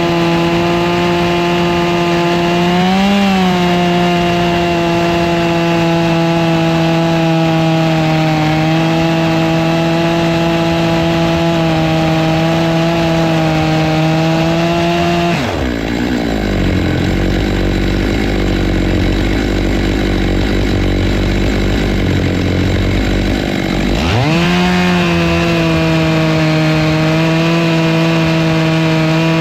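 Stihl MS 661 two-stroke chainsaw with a ripping chain, held at full throttle in a chainsaw mill as it rips a black walnut log. About halfway through it drops suddenly to a low idle for several seconds, then revs back up to full speed, and falls off again at the very end.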